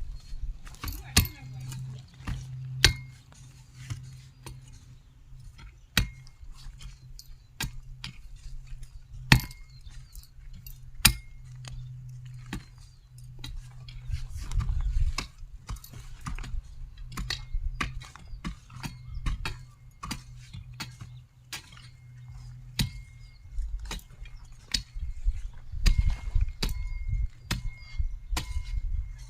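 A metal hand hoe chopping into hard, dry soil while weeding: irregular sharp strikes, roughly one every second or two.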